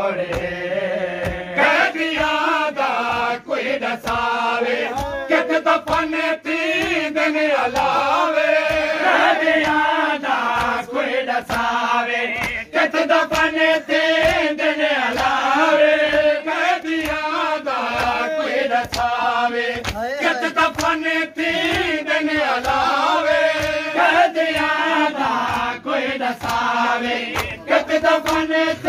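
Men's voices chanting a noha, a Shia mourning lament, in a steady melodic recitation. Under it runs a regular beat of sharp slaps from mourners beating their chests in matam.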